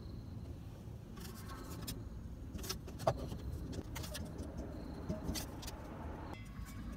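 Flexible aluminium foil duct being handled and fitted into place: scattered crinkles and clicks, the sharpest about three seconds in, over a steady low rumble.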